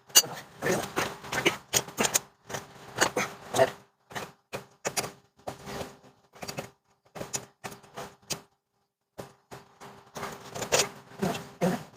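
Irregular clicking and knocking of hand tools on metal: quick clusters of sharp clicks and taps with short pauses between them.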